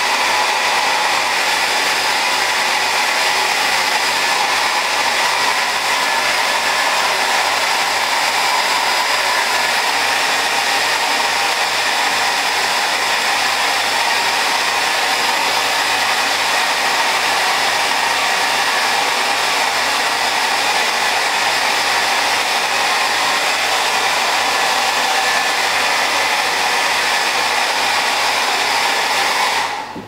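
Handheld electric hair dryer blowing steadily and loudly, cutting off at the very end.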